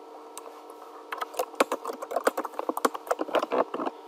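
Typing on a computer keyboard: a quick run of key clicks starting about a second in, over a faint steady hum.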